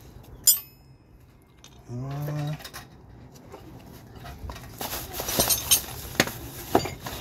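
Metal sockets and hardware clinking and rattling in a socket tray as a hand rummages through it, with several sharp clinks near the end. A single sharp click comes about half a second in, and a short rising vocal sound comes around two seconds in.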